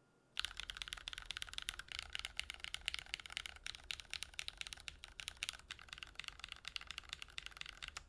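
Fast typing on a YC66 mechanical keyboard with lubed Cotton Candy light tactile switches and Artifact Noir keycaps: a dense, quick run of key clacks that starts suddenly about half a second in.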